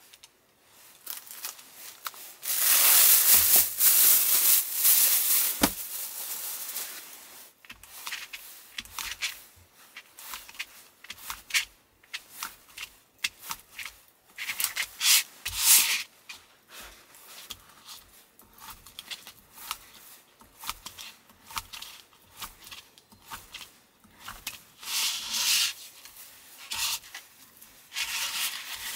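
A kitchen knife cutting soft fish roe on a paper-covered wooden cutting board: many short, irregular taps and scrapes as the blade slices and then chops down onto the board. A louder stretch of rubbing noise fills the first few seconds.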